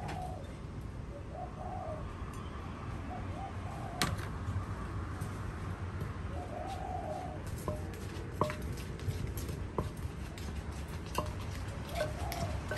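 A dove cooing in short repeated phrases in the background, while a wooden pestle knocks in a clay mortar: one sharp knock about four seconds in, then irregular knocks roughly every second in the second half as shredded bamboo shoot is pounded.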